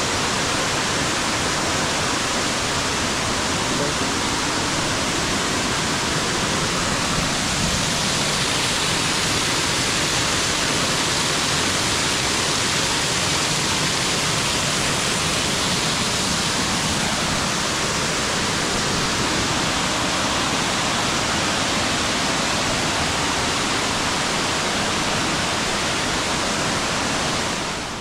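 Waterfall: a loud, steady rush of falling water that drops away sharply near the end.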